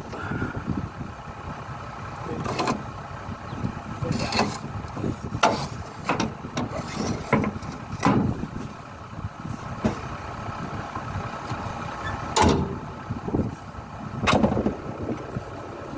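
Engine running steadily, with repeated sharp metallic knocks and clanks at irregular intervals.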